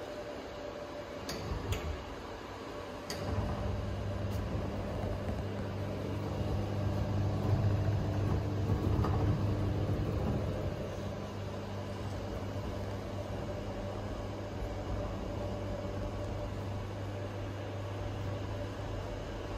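A steady low hum that starts about three seconds in and holds, after a few light clicks.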